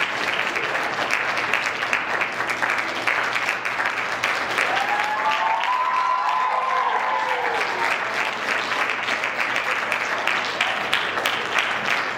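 Theatre audience applauding steadily at the end of a stage play, a dense patter of many hands clapping. About halfway through, a single voice rises above the clapping with a long cheer that climbs and falls.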